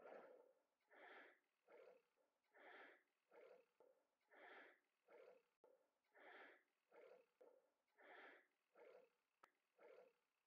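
Faint, rhythmic breathing of a cyclist, about one breath every two seconds, each a longer breath followed by a shorter one.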